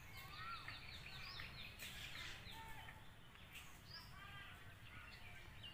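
Faint birdsong from several birds: a quick run of high repeated notes in the first second or so, then scattered chirps and short whistles, over a low steady background rumble.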